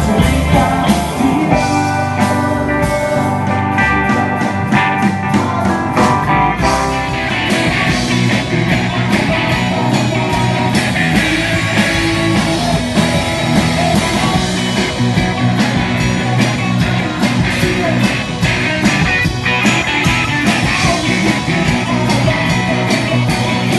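Live rock band playing loudly: electric guitars over a drum kit, continuous throughout.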